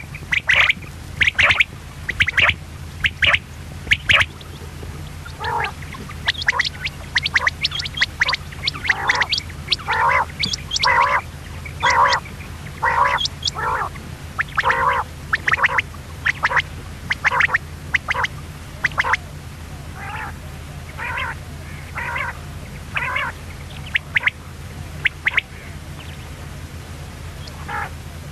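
Common quail calling: a long run of short, sharp calls, one or two a second, with a brief pause about five seconds in. A steady low hum runs underneath.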